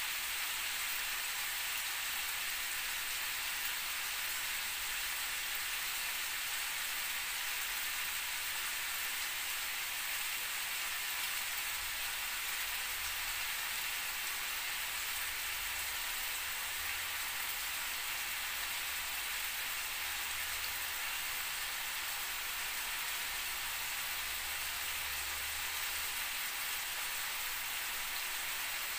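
Diced chicken breast and potato cubes sizzling steadily in oil in a frying pan.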